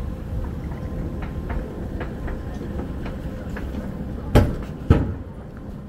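Airport moving walkway running, a steady low rumble with light clicking. Near the end come two loud thumps about half a second apart, where the walkway ends, and the rumble drops after them.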